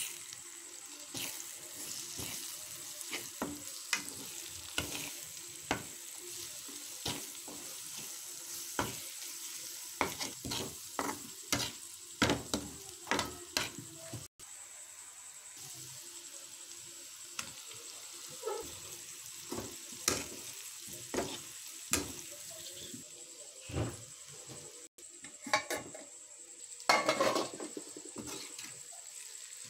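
A spatula scrapes and knocks against a metal pan in irregular strokes, stirring egg and onion-tomato masala over a steady sizzle of frying.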